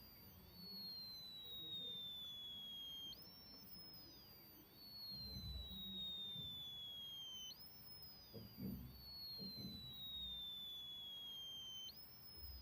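Faint high-pitched electronic whine from a capacitor-dump circuit, heard through a ring magnet on its component. The pitch falls slowly over about four seconds as the capacitor charges, then jumps back up as it dumps, three times over. There are a few soft low thumps in the middle.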